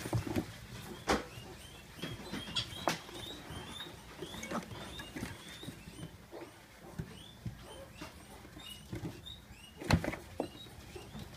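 Potbellied piglets scuffling about in a plastic tub bedded with wood shavings: irregular small clicks and knocks from their hooves, with many faint high squeaks. There is one louder knock about ten seconds in.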